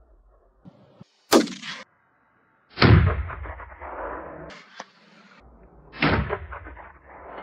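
Three gunshots fired at a running wild boar: one about a second in, one near three seconds in and one about six seconds in, the later two followed by a long echo.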